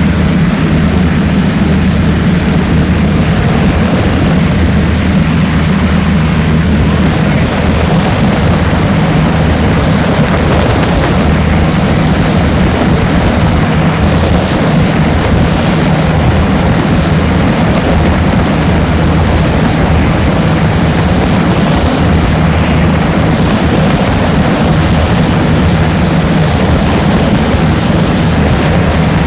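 Piston engine and propeller of a Yak aerobatic plane running steadily, loud and close, with an even drone that holds the same pitch throughout.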